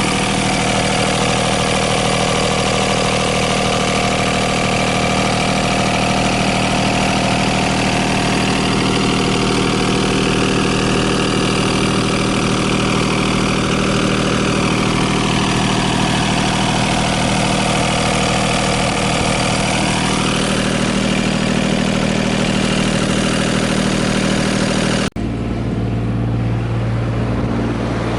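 Komatsu PC15R-8 mini excavator's diesel engine running steadily, with a higher whine over it that rises and falls in pitch twice. Near the end the sound breaks off abruptly and goes on as a lower, steadier engine note.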